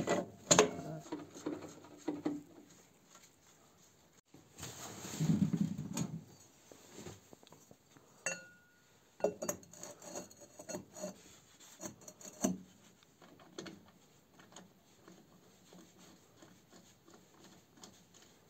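Scattered metal clinks, knocks and rubbing from hands handling tools and parts on a tractor engine being bolted back together. There is a longer rustling scrape about five seconds in and a short high squeak a few seconds later.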